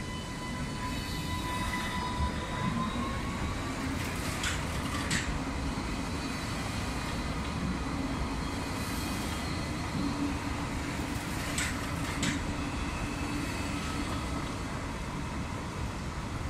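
Alstom Citadis light-rail tram running past on street track: steady rolling rumble with a thin electric whine that rises in pitch a couple of seconds in. Two pairs of sharp clicks come from the wheels, once about four seconds in and again near twelve seconds.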